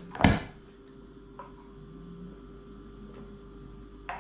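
A single sharp knock about a quarter second in, as the green lid is pressed onto a plastic juice jug. After it, quiet room tone with a steady hum and a few faint clicks.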